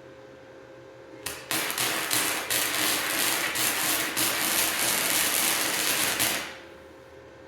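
MIG welder laying a bead along a seam in an axe head: a dense, steady crackle that starts a little over a second in and stops about six seconds in. It is run at a pretty high amperage for good penetration.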